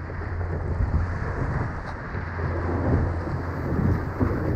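Wind buffeting the camera microphone in a steady low rumble, over the rush and splash of water along the hull of an RS Aero sailing dinghy moving fast.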